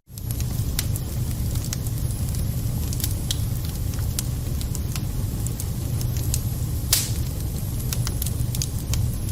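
Wood fire burning in a fireplace, crackling with scattered sharp pops over a steady low rumble; one louder pop comes about seven seconds in. The sound cuts out for a split second at the very start.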